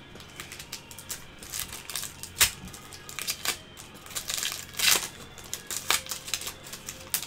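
Trading cards and card-pack wrappers handled close to the microphone by gloved hands: irregular taps and clicks, with a longer crinkling rustle about four to five seconds in.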